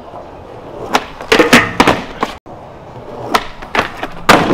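Skateboard clacks and impacts: a cluster of sharp knocks of the board about a second and a half in, then after a short break a loud hit near the end as the skater comes over a metal handrail.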